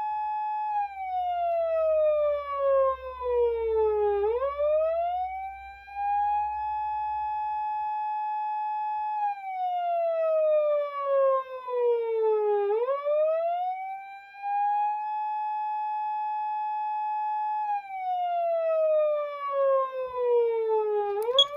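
PATLITE SAP-500BWK-GV electronic siren amplifier sounding its siren: a steady high tone that slowly slides down, snaps quickly back up and holds again, three times over, about every eight and a half seconds. It cuts off with a click at the very end.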